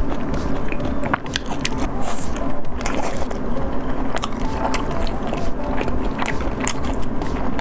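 Close-miked chewing of soft oden fish balls and fish cakes, with many short mouth clicks and smacks over a steady low hum.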